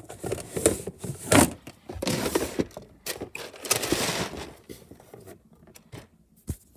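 Small objects being handled: irregular rustling and scraping in bursts for about four and a half seconds, then quieter, with a single click near the end.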